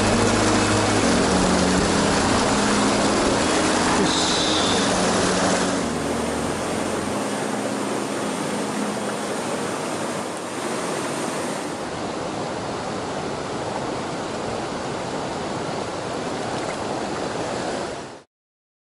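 Fast mountain stream water rushing over rocks in a steady rush. It is louder for the first six seconds or so, then a little quieter, and it stops suddenly near the end.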